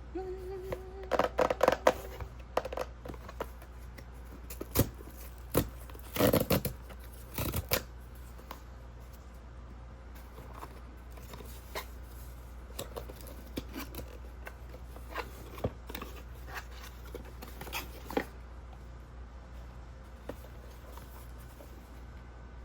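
A blind box's packaging being handled and opened: crinkling, tearing and clicking of plastic wrap and cardboard. It comes in dense loud bursts over the first eight seconds, then thins to scattered light taps and rustles. A short steady tone sounds in the first two seconds.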